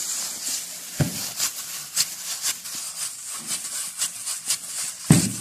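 Gloved hands punching down risen yeast dough in a plastic bowl to press the air out: plastic gloves crackling and dough squishing, with a soft thud about a second in and a louder one near the end.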